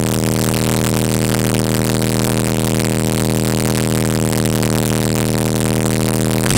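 Soundstream XXX 15-inch subwoofers, driven by a Power Acoustik EG1-10000D amplifier, playing a 40 Hz test tone at full clamp-test power: a loud, steady buzzing drone that cuts off suddenly at the very end.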